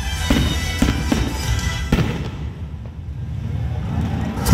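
Aerial fireworks shells bursting, several sharp bangs in the first two seconds, over show music with a heavy low beat. The bangs and music thin out and quieten, then a loud burst comes at the very end.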